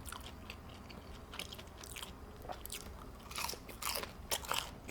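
Close-miked chewing of a fried mozzarella stick: irregular crunchy, wet mouth clicks, louder and busier from about three seconds in.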